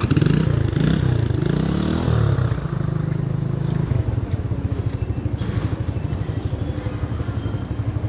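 Motorcycle engine revving up and down for about two seconds, then running steadily with a low throb.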